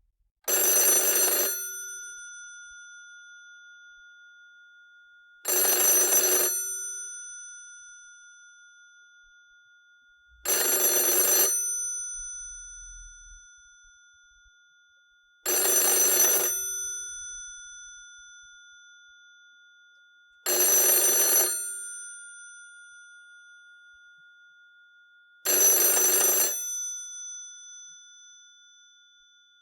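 Old rotary-dial telephone's mechanical bell ringing: six rings of about a second each, one every five seconds, with the bell tones ringing on and fading between rings.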